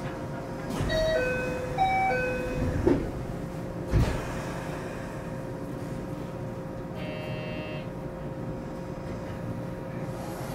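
A 521-series electric train standing at a platform just before departure: a two-note door chime sounds twice, then the doors shut with two knocks about three and four seconds in. A short buzzer sounds about seven seconds in, over a steady electrical hum.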